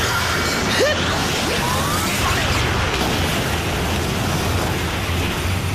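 Dense battle sound effects of crashes and booms under dramatic background music, with a sharper hit about a second in.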